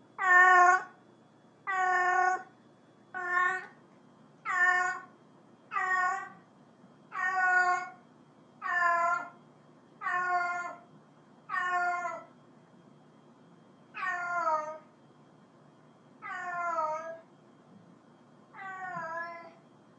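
A domestic cat meowing over and over, about a dozen calls coming every second and a half or so, spacing out near the end; the later calls drop in pitch as they end.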